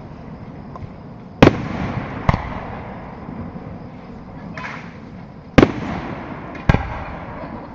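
Aerial fireworks shells bursting: four sharp booms, about a second and a half in, just after two seconds, and two more near the end, each trailing off in a rumbling echo, with a brief crackle in between.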